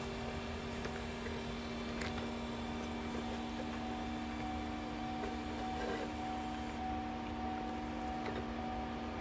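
Cooling-system pump running steadily while it circulates freshly added coolant through the Chevy SS's system: a constant hum with a low rumble and a few light clicks, and a higher tone joining about two seconds in.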